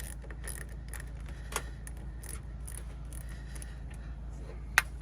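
Small metallic clicks and clinks of a wrench working a bolt on a car battery's cable terminal, over a steady low hum. There is a sharp click about a second and a half in and a louder one near the end.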